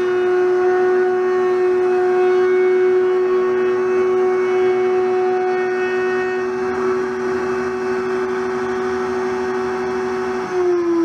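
Table-mounted router running at a steady high whine while the edge of a hardwood cutting board is fed past the bit. Near the end it is switched off and its pitch falls as it winds down.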